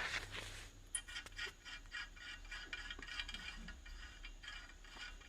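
Faint handling noise: light rubbing and scraping with many small scattered clicks and one sharper tick about a second in.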